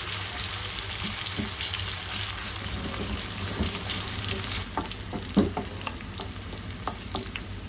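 Sliced onions frying in oil in a pan, a steady sizzle, with short scrapes and clicks of a spoon stirring them now and then.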